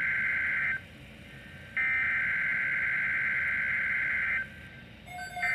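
NOAA Weather Radio SAME header, the digital data bursts that open an emergency alert, sent as repeated bursts with about a one-second gap between them. The first burst cuts off under a second in and the next runs about two and a half seconds. A third starts near the end together with a steady lower tone.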